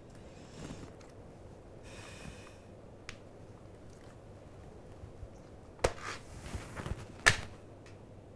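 Quiet room tone with a few sharp clicks and taps, a small cluster about six seconds in and the loudest single click a little past seven seconds, plus a soft short hiss around two seconds.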